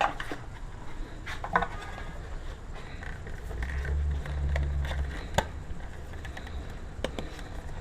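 Scattered plastic clicks and light taps as a tail light assembly is handled and fitted into place, with a low rumble for about a second and a half in the middle.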